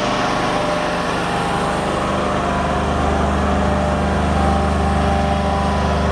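Amtex Inferno 500 truck-mount unit with extended silencers running steadily at high speed, a continuous engine hum; its low drone becomes steadier and a little louder about halfway through.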